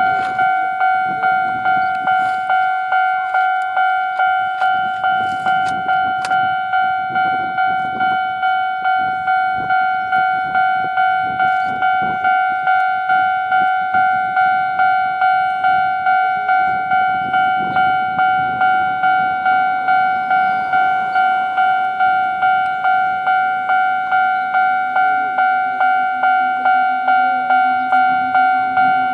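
Japanese level crossing warning bell ringing in a steady, rapid repeating ding, under the low rumble of an electric locomotive hauling a train of hopper freight wagons past.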